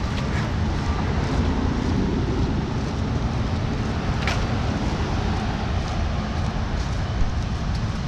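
Car traffic passing on a road alongside the walkway: a steady rumble with no single loud event.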